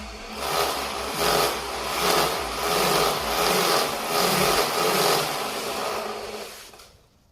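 Small DJI camera drone's propellers whirring, the sound swelling and easing about every three-quarters of a second, then fading out near the end.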